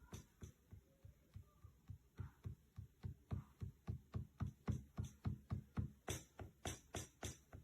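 Electronic drum beat: steady low kick-like thumps about four a second, with brighter hi-hat-like hits coming in more strongly near the end.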